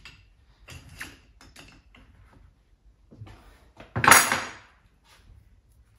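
Metal parts and tools clinking and knocking on a workbench while a coilover is handled, with a few light knocks in the first second and one louder clatter about four seconds in.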